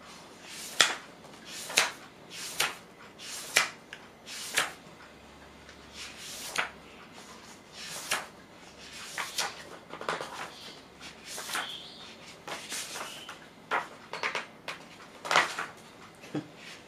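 Paper pages of a Bobo magazine anniversary edition being turned one after another, each turn a short swish. They come about once a second at first, then turn into more irregular rustling with a few sharper flips.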